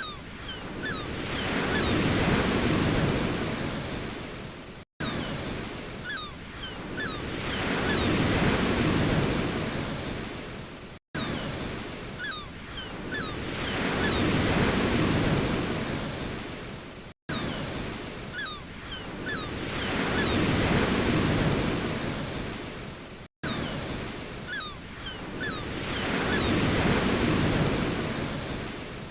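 Ocean waves washing onto a shore, each wave swelling and then ebbing about every six seconds. The sound cuts out briefly between the waves, a short recording looped over and over.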